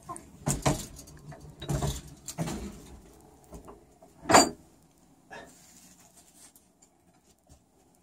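Roosting chickens being disturbed in a dark coop: shuffling, rustling and low thumps in the first three seconds, then one short, loud sound a little past four seconds in and a softer one a second later.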